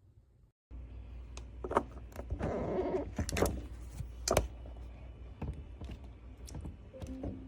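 Scattered clicks and knocks of something being handled, with a short rustle about two and a half seconds in, over a steady low hum. The sound starts abruptly under a second in.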